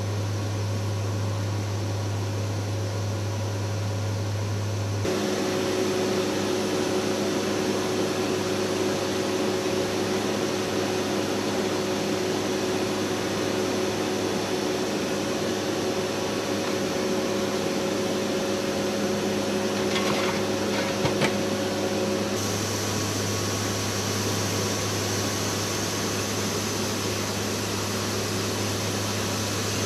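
Steady drone of the WC-130J's four turboprop engines and six-blade propellers, heard inside the aircraft in flight, with a strong low propeller hum. The tone of the drone shifts abruptly about five seconds in and again about three-quarters of the way through.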